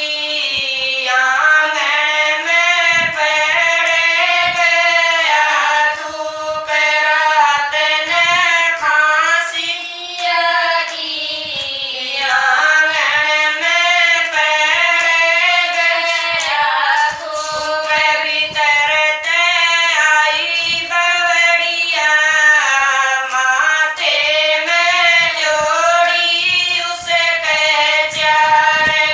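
Women singing a Haryanvi folk bhajan together in unison, a high, wavering melody carried in long phrases with brief breaths between lines.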